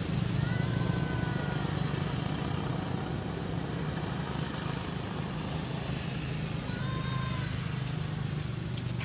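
Steady low engine rumble of a motor vehicle, with two brief, faint, thin high-pitched calls, one near the start and one about seven seconds in.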